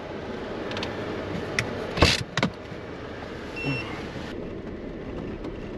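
Jeep Wrangler heard from inside the cab on a dirt track, with a steady run of engine and tyre noise. Two sharp knocks come about two seconds in, the first the loudest, followed by a few smaller clicks.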